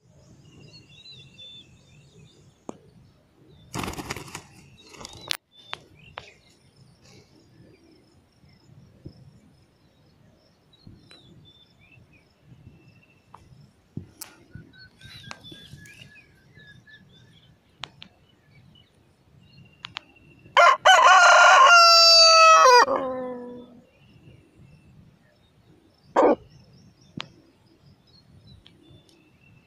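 Aseel rooster crowing once, loud and close: a long call that drops in pitch at its end, followed a few seconds later by a short, sharp call. A brief rustling burst about four seconds in, and faint distant bird calls.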